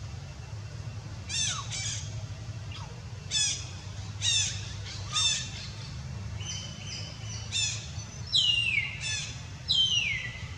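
A series of short, high-pitched animal calls, each with a quick drop in pitch. Near the end come two longer calls that slide downward. A steady low rumble runs underneath.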